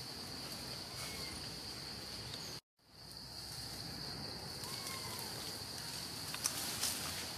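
Insects droning steadily in forest, a single high-pitched note that drops out for a moment about two and a half seconds in. A few faint chirps and some sharp clicks come near the end.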